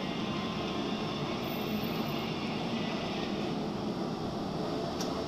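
Racing motorcycle engines droning at a distance around the circuit, with a faint high whine that fades about three and a half seconds in.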